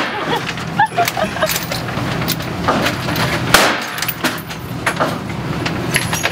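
Gunfire on an indoor range: one loud rifle shot about three and a half seconds in, with several fainter, sharper shots or knocks around it and a steady low hum underneath.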